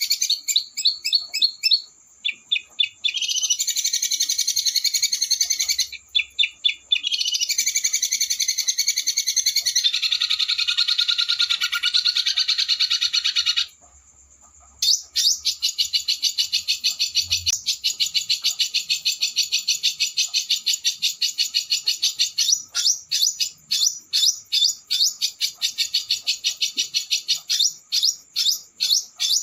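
Small songbird singing fast, harsh rolling trills of rapid repeated notes in long runs, broken by a few short pauses.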